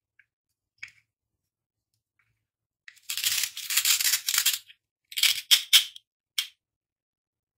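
Velcro pads of a plastic toy bell pepper being torn apart: a long scratchy rip lasting nearly two seconds, then a few short rips.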